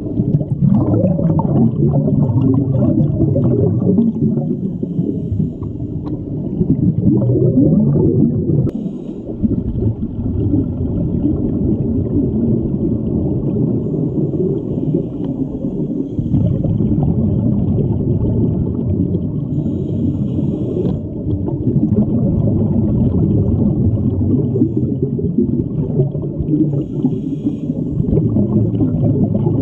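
Steady, muffled low rumble of underwater sound picked up by an action camera in a waterproof dive housing, in a large aquarium tank. It dips briefly about nine seconds in.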